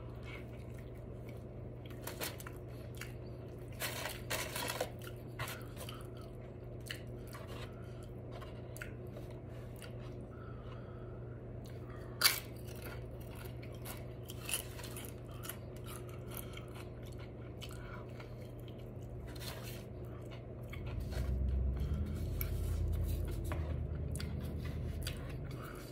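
Close-miked chewing and biting of a burrito and tortilla chips, with scattered sharp crunches, the loudest about halfway through. A low rumble rises for a few seconds near the end.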